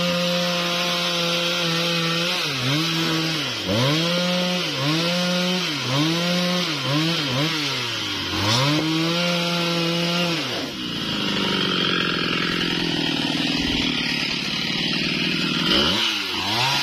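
Husqvarna 395XP two-stroke chainsaw revved up and down in quick blips about once a second. About eleven seconds in, its pitch drops and turns rougher for several seconds as the chain bites into wood under load. Near the end the revving starts again.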